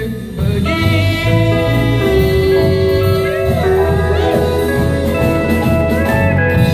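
Live country band playing, pedal steel guitar with electric and acoustic guitars, holding long sustained notes.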